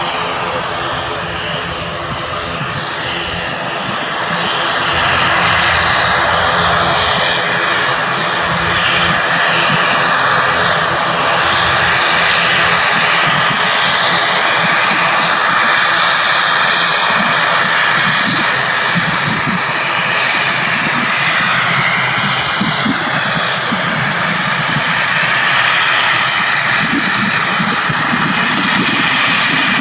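Twin turboprop engines and propellers of an ATR airliner running, a steady drone with a held whine in it, getting louder about five seconds in.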